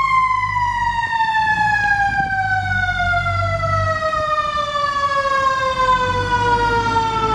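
Siren winding down, one long wail whose pitch falls slowly and steadily the whole time, over a low rumble.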